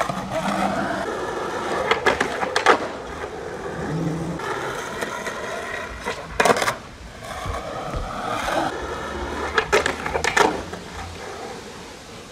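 Skateboard wheels rolling on asphalt, broken by several sharp clacks as the board pops and slaps back down during flatground flip-trick attempts.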